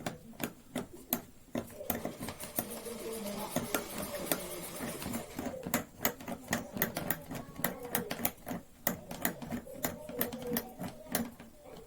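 Irregular rapid clicks and light taps, several a second, from parts and hand tools during assembly of a CNC machine's Z axis. A hiss swells up between about two and five seconds in.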